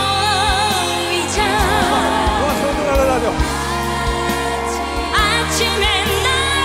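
A female trot singer singing with a live band: long held notes with wide vibrato over steady bass and a beat.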